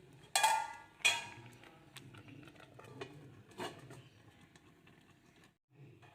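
Metal plates clanking together: two loud ringing clanks about a second in, a third softer one later, and light clinks between.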